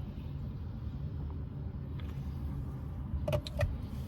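Steady low rumble inside a parked car's cabin, with a couple of brief small sounds about three and a half seconds in.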